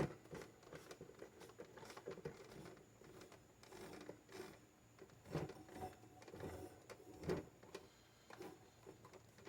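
Faint, irregular rubbing and scraping with a few light knocks: an old oscillating fan being handled and wiped down with a rag.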